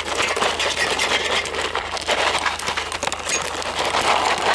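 Popcorn kernels popping rapidly in a foil popcorn pan as it is shaken over heat, with many quick sharp pops over a steady sizzle. A steady low hum runs underneath.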